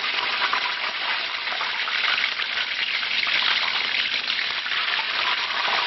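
Beer-battered basa fillet deep-frying in hot oil in a wok: a steady, dense sizzle.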